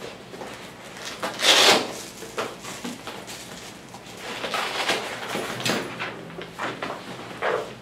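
A padded fabric dog cone being handled and worked over a dog's head, rubbing and scraping in several bursts, the loudest about one and a half seconds in, with more around five seconds and a short one near the end.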